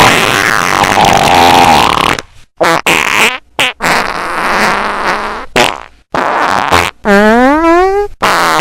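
A rapid string of very loud, distorted fart sound effects: a long one, a quick run of short ones, another long one, and near the end one that rises in pitch.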